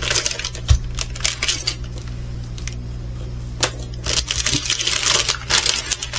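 Small plastic packets and parts of a diamond painting kit being handled: a run of quick clicks, rattles and crinkles, with a pause in the middle, over a steady low hum.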